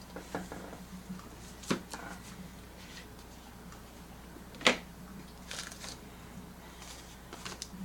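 Light hand-handling noises of items and packaging being moved: scattered soft clicks and rustles, with two sharper clicks, the louder one a little past the middle.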